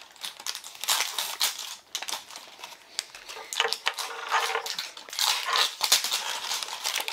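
Plastic toy packaging crinkling and rustling as it is handled, in irregular crackles.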